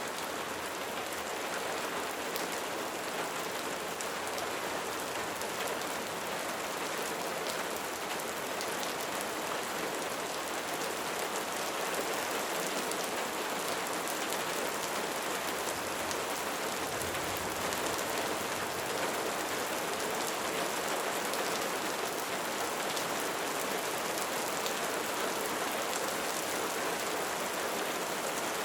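Light rain falling steadily, a dense patter of raindrops on a surface with fine individual drop ticks.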